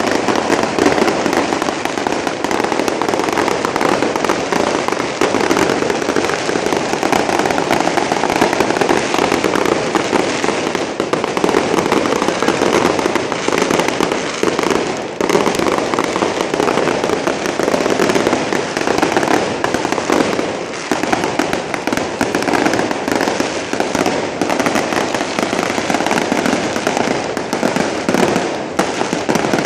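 Street fireworks going off nonstop: a dense, continuous crackle of rapid small bangs with no real pause.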